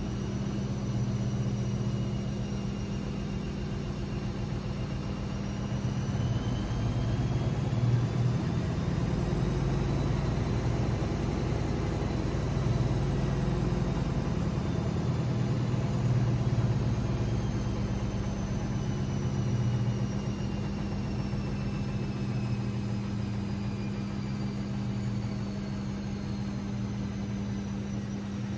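AEG Lavamat 6610 washing machine's drum motor whining as it speeds up and then slowly winds down again, over a steady low hum and rumble from the machine.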